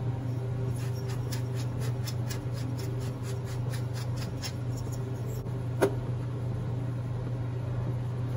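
Pepper mill grinding black pepper: a quick run of dry ticks for about four seconds, then a single sharp knock nearly six seconds in, over a steady low hum.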